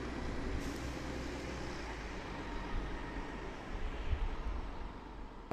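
Mercedes-Benz Citaro city bus with a ZF Ecomat 2 automatic gearbox driving off, its diesel engine and drivetrain rumbling steadily and growing fainter over the last second or so as it moves away.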